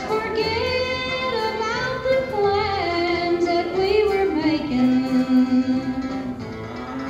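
A recorded female voice sings a slow, drawn-out melody over band accompaniment from an animatronic show's soundtrack. Near the end she holds one long low note.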